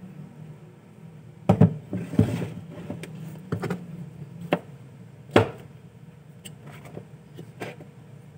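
Several sharp knocks and clatters of hard objects set down and picked up on a tabletop, the loudest about a second and a half in and again about five seconds in, then a few lighter clicks. A steady low hum, an electric fan, runs underneath.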